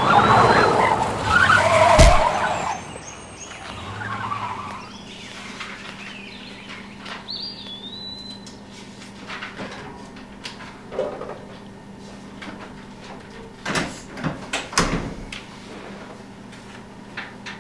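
Pickup truck tyres skidding on a road for about two seconds, ending in one sharp hit of impact as the truck strikes someone. After that a quieter stretch with a low steady hum and a few scattered clicks.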